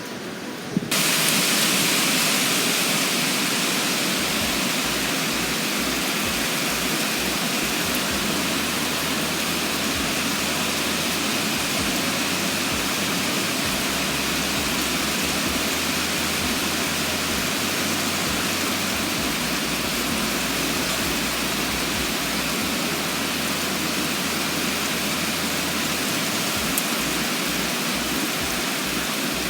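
Heavy downpour: a loud, steady hiss of rain that comes in suddenly about a second in and holds without letting up.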